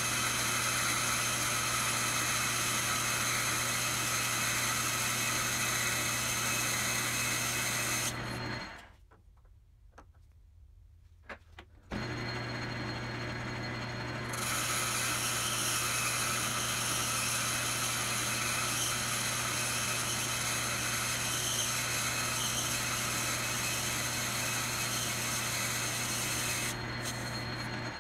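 Logan 10-inch lathe running steadily while a tool turns a brass bar. The machine stops for about three seconds a third of the way in, with a few faint clicks, then starts again. The cutting noise picks up a couple of seconds after the restart.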